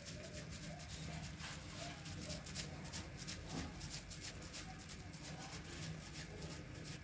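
Two cats eating wet cat food from a plastic bag: faint, rapid clicks of chewing and of the plastic under their mouths.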